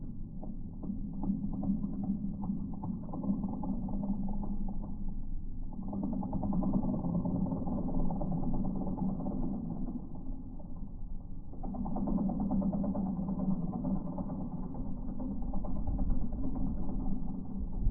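Bobcat E10 mini excavator and its hydraulic Geko stump grinder running, heard slowed down so the sound is deep and muffled, a dense rapid pulsing. The sound swells in three passes, easing off briefly about six seconds in and again a little past halfway.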